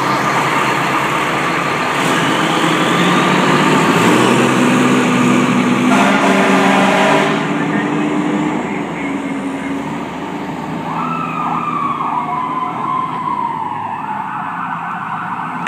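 Fire engine pulling away, its engine rising in pitch as it accelerates, with a short horn blast about six seconds in. From about eleven seconds its siren wails up and down as the truck drives off, growing fainter.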